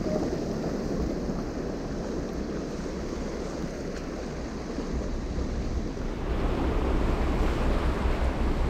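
Sea surf washing against shore rocks, with wind buffeting the microphone. The wash swells louder about six seconds in.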